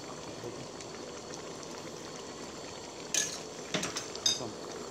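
Pineapple catfish curry bubbling steadily in an aluminium pot while a metal ladle stirs it. A few sharp metallic clinks of the ladle against the pot come about three to four seconds in.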